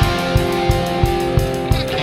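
Background rock music with guitar over a steady drum beat, about three beats a second.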